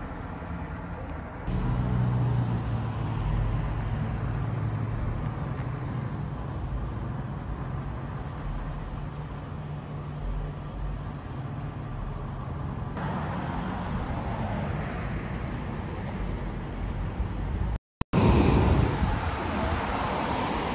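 Street traffic: cars and trucks going by as a steady low rumble, louder near the end.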